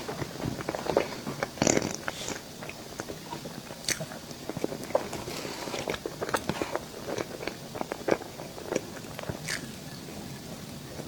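Close-miked eating of dessert: a person biting and chewing, with many short crunching clicks, the loudest bite about two seconds in.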